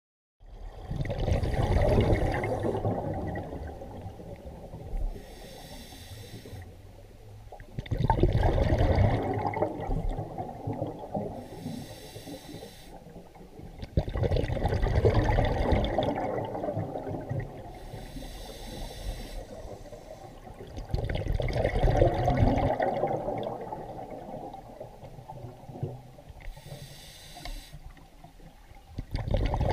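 Scuba diver breathing through a regulator underwater: a short hiss on each breath in, then a longer rush of exhaled bubbles. About five breaths, one every six to seven seconds.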